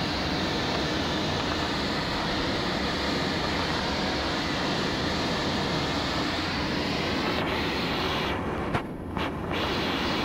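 Steady rushing and rumbling airflow noise inside a glider's cockpit during an aerotow climb. A sharp knock comes near the end, and the rushing briefly thins.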